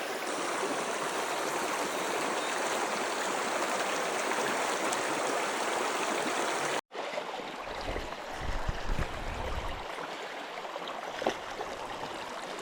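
Small river rushing steadily over riffles. The sound cuts off abruptly about seven seconds in and comes back softer, with a few low thumps soon after.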